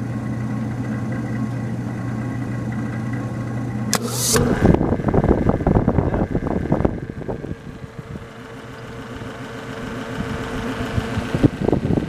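A steady low hum. About four seconds in, the antique Frigidaire's cold-control switch snaps over with a sharp click, the hum stops, and the refrigerator's repulsion-induction motor starts: a few seconds of loud, rapid rattling, then a quieter running sound that gradually grows louder.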